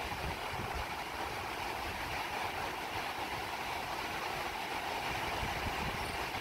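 Ocean surf breaking steadily, with wind rumbling unevenly on the microphone.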